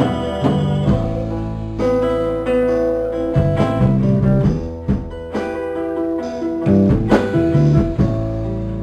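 Live band music: acoustic guitar strummed through a run of chords, with no singing.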